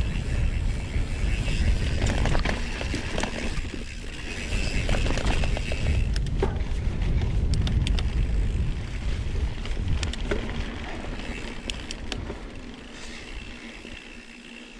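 Mountain bike riding along a dirt trail: low wind rumble on the microphone and tyre noise, with scattered clicks and rattles from the bike. The sound dies down over the last few seconds.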